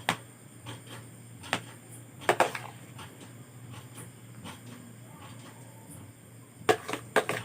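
Scattered light knocks and clicks of hands working with snack cakes, packaging and a container, a cluster of them near the end, over a steady low hum.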